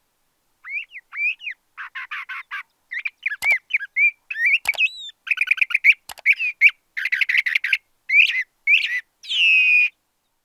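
LeConte's thrasher singing: a varied run of short phrases, slurred whistles and rapid buzzy trills. It ends about nine seconds in with a longer whistle sliding down in pitch.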